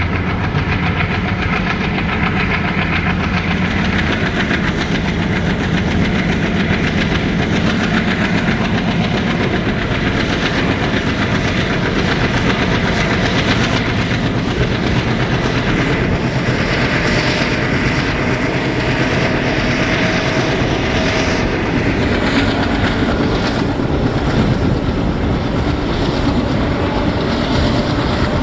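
A diesel-hauled passenger train running along the line, heard from on board: a steady rumble and rattle of the coach wheels on the rails, with a faint whine for a few seconds about two-thirds of the way in.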